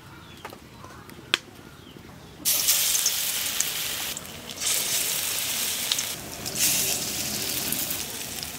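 Besan-battered pumpkin flowers frying in hot mustard oil in a kadai: a loud sizzle that starts suddenly about two and a half seconds in, after a quieter start with a single click, and dips briefly twice.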